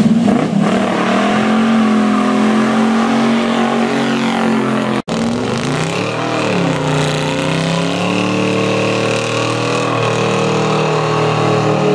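Classic car engine held at high revs for about five seconds. After a cut, a second car's engine dips and climbs back to a sustained high rev for a burnout, its rear tyres spinning in place with a high tyre screech.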